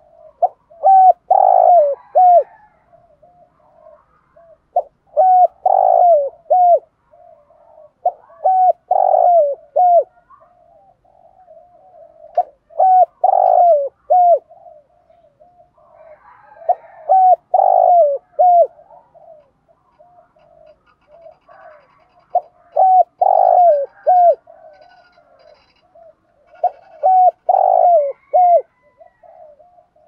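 Spotted dove cooing: a phrase of three or four loud, short coos about every four seconds, with softer coos between the phrases.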